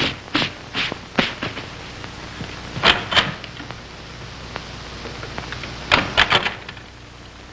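Knocking on a wooden door in separate bursts of raps: four at the start, two a few seconds later, then a quicker cluster near the end, over the hiss of an old film soundtrack.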